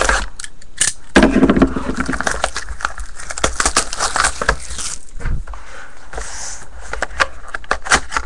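Trading card packaging and cards being handled and opened: scattered crackles of plastic wrap and sharp clicks of cardboard and cards, with a louder handling noise about a second in.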